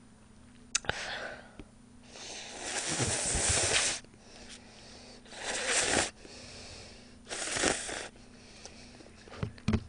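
A person slurping ramen noodles and broth from a paper cup: one long slurp about two seconds in, then two shorter slurps, the last with the cup raised to the lips.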